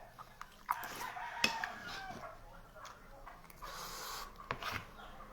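A rooster crowing once, about a second in, with a few sharp clicks.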